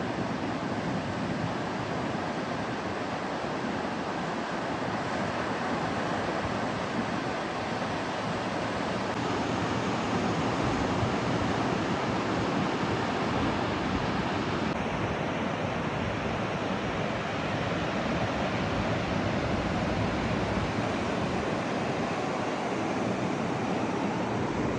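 Ocean surf washing in as a steady rush, with some wind on the microphone; it grows a little louder about ten seconds in.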